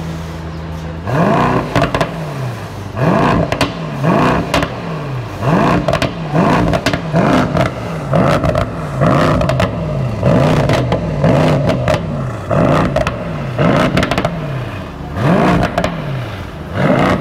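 Mercedes-AMG E63S twin-turbo V8 revved through a GTHAUS Meisterschaft exhaust with its valves open. It idles for about a second, then is blipped a dozen or more times, each rev rising sharply and dropping back.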